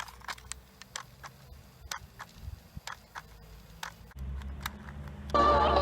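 Light, irregular clicks from a Sony WM-D3 cassette Walkman's mechanism, two or three a second. A low hum comes in about four seconds in, and music from the tape starts playing again near the end.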